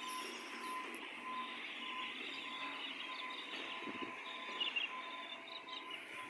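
Garbage truck running, with a reversing alarm beeping steadily, about one beep every two-thirds of a second, over the engine noise.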